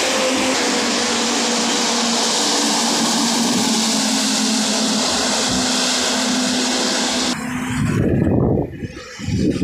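Wet-highway traffic noise: a steady hiss of heavy truck tyres on the wet road with a faint engine hum as a container trailer passes close by. About seven seconds in the sound cuts to uneven, surging rumbles.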